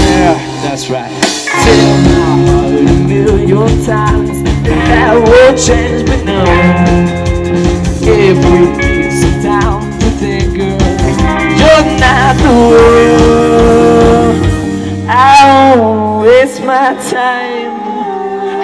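Live rock band playing through a PA: electric guitars, bass and drums in a stretch between sung lines. Near the end the drums and bass drop out, leaving the guitars.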